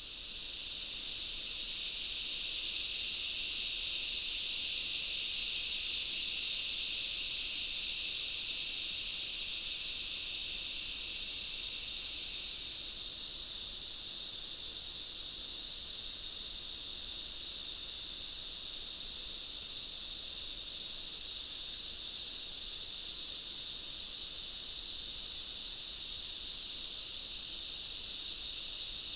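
Dense jungle insect chorus: a steady, high-pitched shrill drone without breaks, swelling up over the first second or so.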